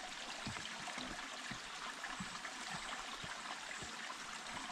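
Small forest brook trickling steadily under a wooden plank footbridge, with soft, irregular footsteps.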